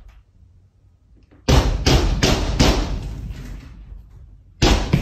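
Repeated loud banging, about three strikes a second, in two runs, one starting about a second and a half in and another near the end: noise made to scare bears out of a kitchen.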